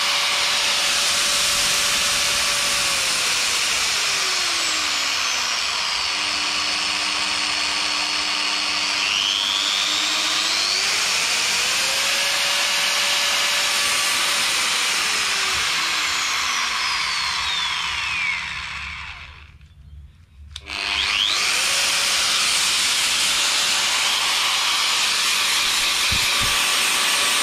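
Makita GA504 variable-speed angle grinder running free with no disc. Its whine falls to a low pitch and back up twice as the speed dial is turned down and up, showing the speed control is working after the repair. About two-thirds through it drops away for a couple of seconds, then comes back at full speed.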